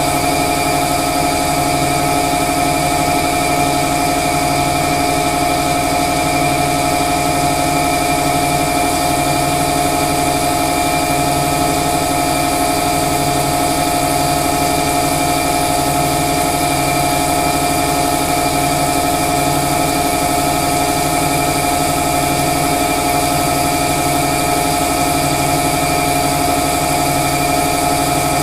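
Winona Van Norman CG250 crankshaft grinder running while grinding a crankshaft: a steady machine hum with several fixed tones, under a low pulse that comes back about every second and a half.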